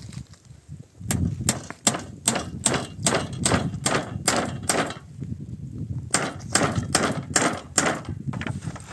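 Hammer nailing wooden roof slats, in steady strokes of about two and a half a second: a run of about ten, a pause of about a second, then about six more.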